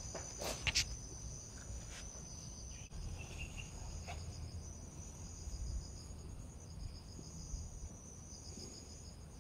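Insects chirring steadily in the vegetation, a high pulsing drone, with two sharp clicks near the start.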